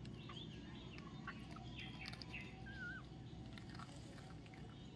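Faint birds chirping, with short warbling calls scattered through, over a steady low background hum and a few soft rustles.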